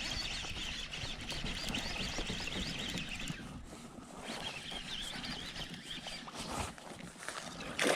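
Birds chirping continuously, a busy chatter of short high calls that pauses for about a second midway.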